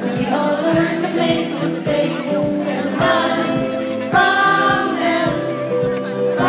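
Live acoustic band performance heard from the audience: a woman singing over strummed acoustic guitars, with a steady pulse about twice a second.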